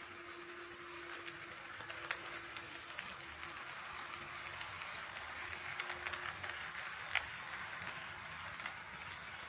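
HO scale model train running on the track: a steady rolling hiss with scattered sharp clicks from the wheels over the rail joints, and a faint motor hum that stops about six seconds in.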